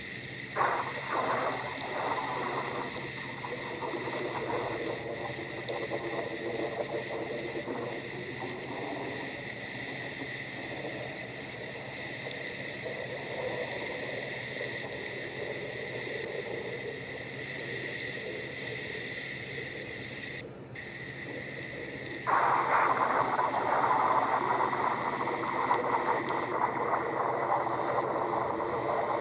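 Storm sound-effect ambience: a rain-like hiss over a bed of steady, eerie sustained tones. The hiss turns suddenly louder about 22 seconds in and stays loud.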